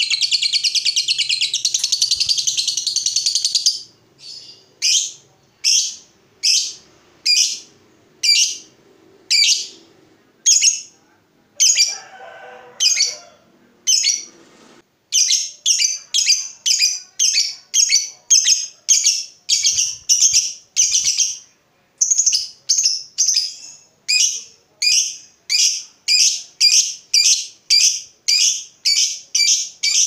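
Lovebird calling: a fast, unbroken chatter for the first few seconds, then a run of sharp, high chirps a little under a second apart. About halfway through, the chirps quicken to about two a second.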